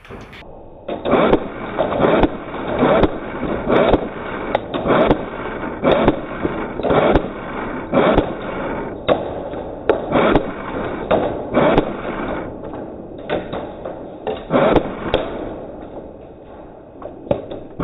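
Airsoft rifle firing repeated single shots, picked up by a camera mounted on the gun: sharp knocks at an uneven pace of roughly two a second, with a few short pauses.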